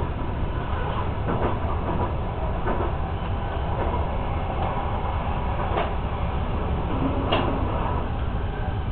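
Passenger train running along the track, heard from inside the carriage: a steady low rumble with a few sharp clacks of the wheels on the rails.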